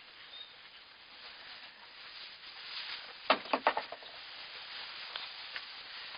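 Newborn goat kids' small hooves shuffling and tapping in straw bedding: faint rustling, with a quick run of four or five sharp taps about three seconds in.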